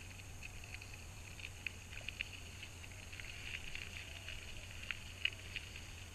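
Bicycle tyres rolling over a gravel road: irregular small crackles and ticks of grit under the wheels over a steady low hum.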